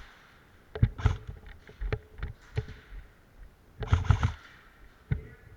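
Airsoft guns firing: scattered single shots, then a short rapid full-auto burst about four seconds in.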